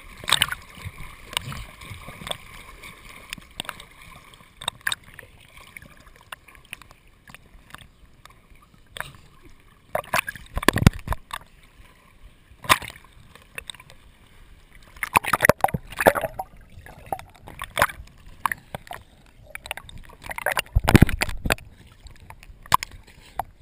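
Lake water splashing and sloshing over a GoPro action camera held at the surface while a swimmer and a dog paddle close by. The splashes come irregularly, with louder clusters about ten, fifteen and twenty-one seconds in, and gurgling as the camera dips through the surface.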